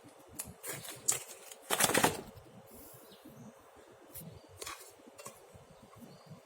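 Scattered clicks, knocks and rustling of kitchen food preparation, the loudest cluster about two seconds in.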